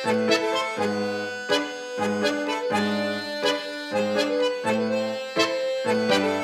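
Instrumental song intro led by an accordion playing accented chords, struck sharply about every three-quarters of a second and held between strikes.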